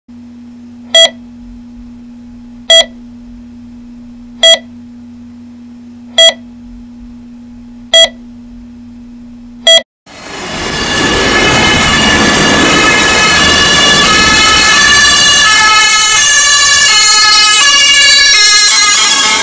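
A bedside patient monitor beeping six times, evenly about every second and three-quarters, over a steady low hum. About ten seconds in the beeping stops and music fades in and plays on.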